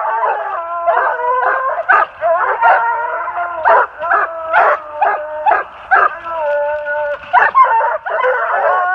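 Treeing Walker coonhounds barking treed at a den tree, several dogs at once and overlapping without a break: short sharp chop barks mixed with longer drawn-out bawls. This is tree bark, the hounds' signal that they have their quarry holed up in the den tree.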